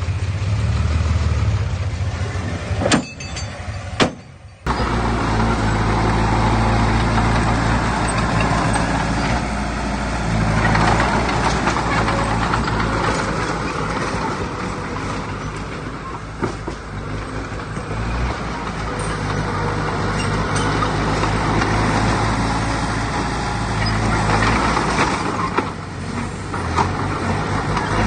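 Heavy diesel engine of earthmoving machinery running steadily under load, with a short break marked by two sharp clicks about three to four and a half seconds in.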